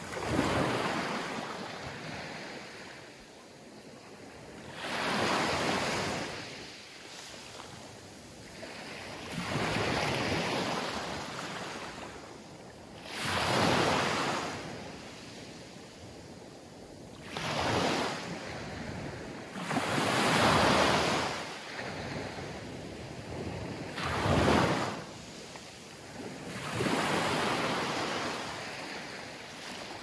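Small Mediterranean waves breaking and washing up a coarse sand beach with scattered pebbles. A surge of surf comes every three to five seconds, about eight in all, each swelling and fading.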